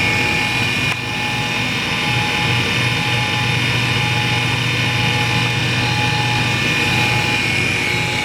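Hall Model 80 valve refacer running steadily, its motor giving a low hum under a high, even whine, with a brief dip in level about a second in.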